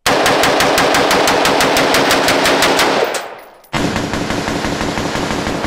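Rapid gunfire from a Daniel Defense DD4 RIS III AR-15-style rifle: a quick string of shots, a short break about three seconds in, then another quick string.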